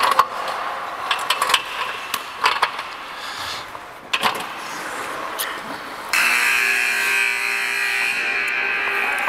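Ice hockey skates scraping and sticks clacking on the ice. About six seconds in, the arena's scoreboard buzzer starts: a steady, harsh, many-toned blare that holds to the end, signalling the end of a period.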